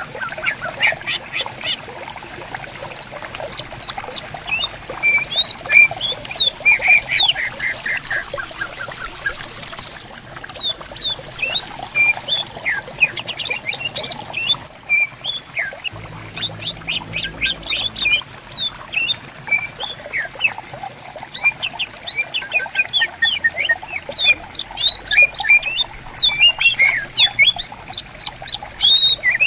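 Cucak ijo (green leafbirds) singing back and forth in fast strings of sharp chirps and whistles, over the steady murmur of a flowing stream.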